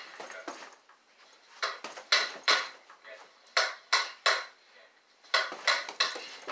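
Fists punching a hanging fabric hamper bag in three quick flurries of three or four blows each, sharp slapping hits that set the bag and the hoop frame rattling.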